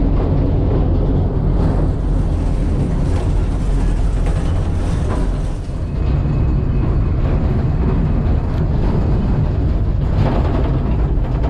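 Mine tourist train running along its track, heard from inside its enclosed carriage as a steady low rumble.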